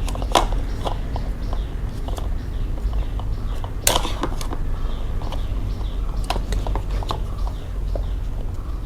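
Plastic parts of an ab roller wheel being handled and fitted together: irregular clicks and knocks, with one sharper snap about four seconds in, over a steady low hum.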